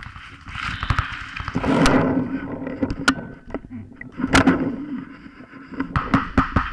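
Paintball marker firing, heard close to its barrel: scattered single shots, then a quick string of several shots a second near the end.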